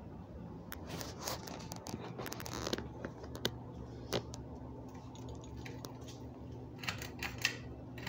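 A Hampton Bay Huntington III ceiling fan's motor hums steadily while it runs. Over the hum come scattered clicks and rustling rattles as the fan's switch housing and pull chain are handled close up, with a burst from about one to three seconds in and another near the end.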